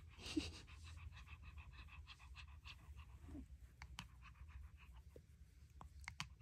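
White Pomeranian panting faintly while being petted, with a few faint clicks.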